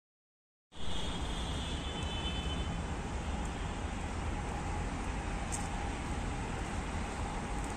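Steady low vehicle rumble that starts abruptly about a second in, with a faint high whine over its first couple of seconds.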